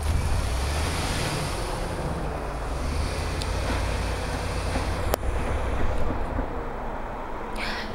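Chevrolet pickup truck's engine running steadily at low revs as the truck works through deep snow, with wind rushing on the microphone. The engine hum fades about two-thirds of the way through.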